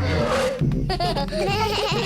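Cartoon background music, with several high voices laughing and giggling starting about a second in.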